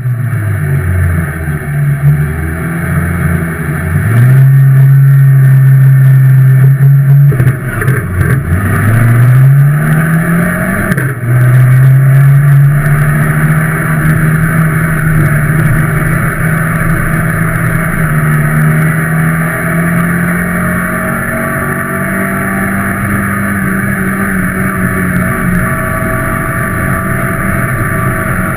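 Ministock dirt-track car's engine heard from inside the cabin: idling with small rises and falls at first, then revved up in two rising sweeps about eight to eleven seconds in, then running steadily at a moderate pace, its pitch creeping slightly higher.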